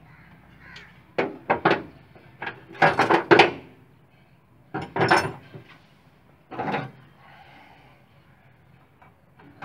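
Knocks and rattles from hand work on the top of a 200cc motorcycle engine's cylinder head. There is a quick handful of knocks a second in, a rapid run of louder ones around three seconds, another burst about five seconds in, and a last one near seven seconds.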